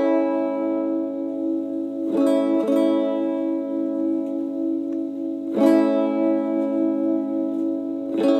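A guitar played through a Digitech Main Squeeze compressor/sustainer pedal: chords struck four times, each ringing on at a nearly even level with long sustain until the next.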